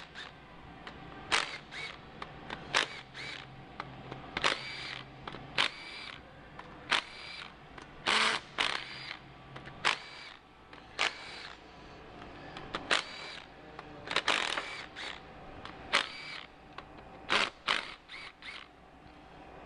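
Irregular metallic clinks and clicks from hand tools and small steel parts as the camshaft bearing cap bolts are undone and the caps are lifted off a 2.0-litre turbo engine's cylinder head. Several of the clinks ring briefly like metal set down on metal.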